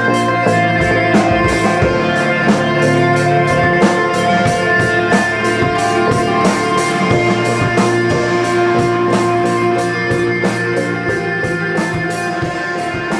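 Rock music: electric guitar playing over a drum kit with a steady beat.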